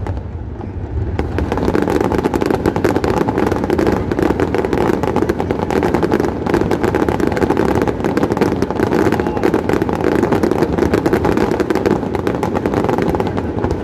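Fireworks display in full barrage: many shells and crackling stars going off together in a dense, continuous crackle over a steady rumble, thickening about a second in.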